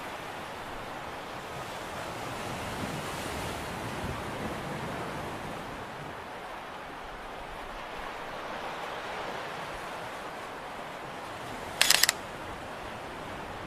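Steady rushing of surf and wind, swelling and easing a couple of times. About twelve seconds in there is a short, loud clatter of clicks.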